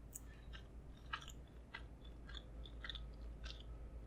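Faint close-up chewing of food: soft, irregular mouth clicks and smacks, about a dozen over a few seconds.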